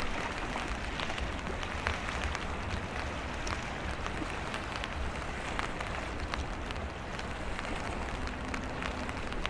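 Heavy rain falling, a steady hiss with scattered drop ticks, while strong wind rumbles against the microphone.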